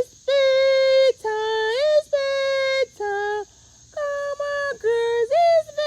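A woman singing a slow, wordless tune in long held notes, sliding up between some of them, to coax the hens to go to roost. A steady high chirring of crickets runs underneath.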